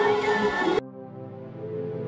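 Background music: one track cuts off abruptly just under a second in, and a softer track of held, sustained tones takes over.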